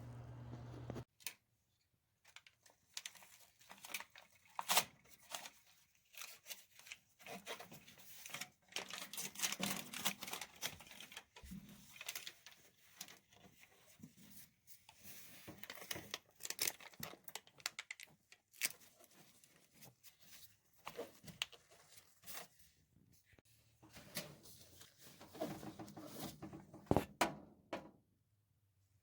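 Irregular crinkling, tearing and clicking from hands working dryer vent parts: foil tape and sheet-metal or foil duct. A steady low hum cuts off about a second in.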